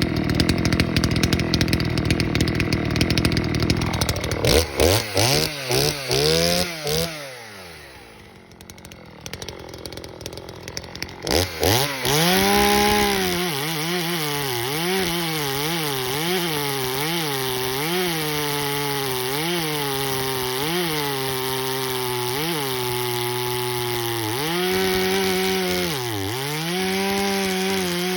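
Poulan 3450 two-stroke chainsaw with a ported engine, run hard and revved in repeated throttle blips. It drops to a low idle for a few seconds, then revs up again and holds near full throttle toward the end.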